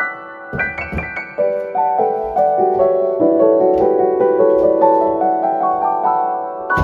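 Background piano music, a gentle flowing keyboard melody. A few short knocks sound under it about half a second to a second in.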